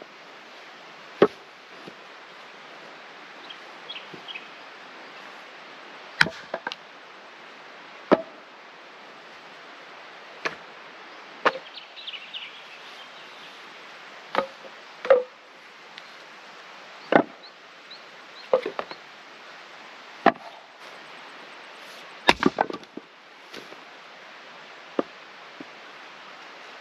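Axe splitting firewood: a dozen or so sharp chops at irregular gaps of one to three seconds, with a short clatter of several knocks about two-thirds of the way through.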